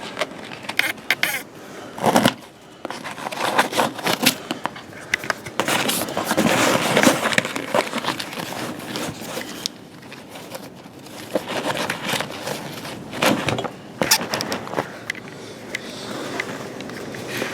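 Rustling, scraping and clicking of a backpack being handled and opened, with fabric, buckles and gear rubbing and knocking in irregular bursts.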